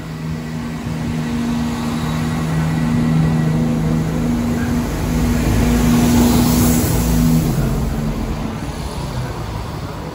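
Class 170 Turbostar diesel multiple unit running along the platform, its underfloor diesel engines giving a steady drone. The drone grows louder, peaks about six seconds in, then fades.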